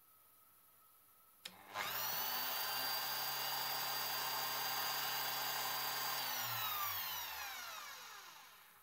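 A click about a second and a half in as the relay in the plug socket switches, then a 220-volt power spindle (a straight grinder with a drill chuck) spins up at once and runs at steady speed with a high whine. About six seconds in the power is cut and it coasts down, its pitch falling until it stops.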